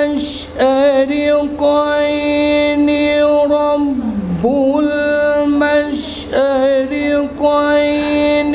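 A man reciting the Quran in the slow, melodic tilawat style, holding long steady notes with short breaks between phrases.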